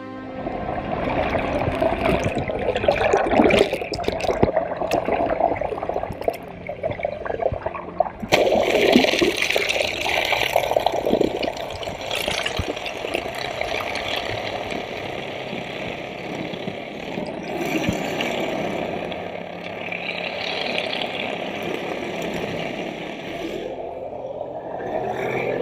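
Rushing, splashing water, loud and unbroken, changing character abruptly about eight seconds in.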